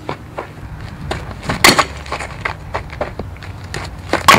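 Softball bat striking pitched balls on slap hits: two sharp cracks about two and a half seconds apart, with fainter clicks and scuffs between.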